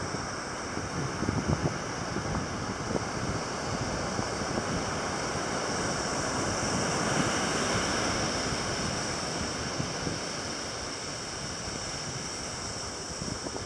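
Surf washing on a shore: a steady rushing that swells a little midway, with wind buffeting the microphone.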